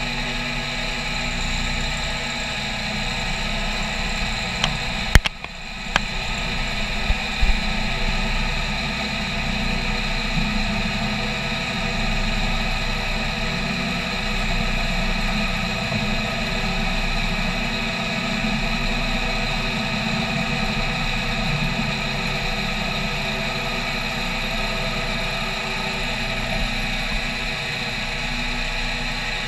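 CNC milling machine's end mill adaptive-clearing a metal plate under coolant: a steady spindle and cutting whine with several held tones. A few sharp clicks come between about five and seven and a half seconds in, the loudest near five seconds.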